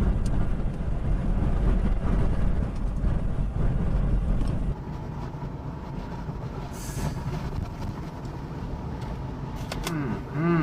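Storm wind rumbling and buffeting the microphone in a deep, low roar, which drops noticeably about five seconds in. A voice begins just at the end.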